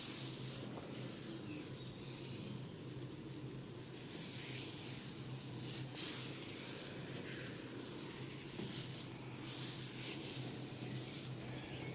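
Fingers rubbing and scratching through hair during a head massage, close to the microphone: repeated rustling swishes, each lasting a second or two, over a steady low hum.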